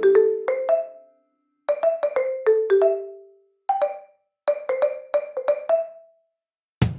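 Background music: a light melody of short plucked or mallet-struck notes in quick phrases, broken by brief silent gaps.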